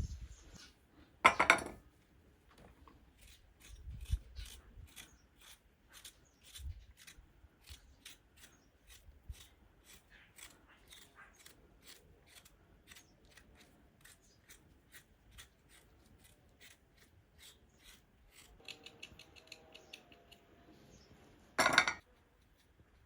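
Scissors or hand shears snipping over and over, a few short cuts a second. Two louder brief bursts of noise come about a second in and near the end.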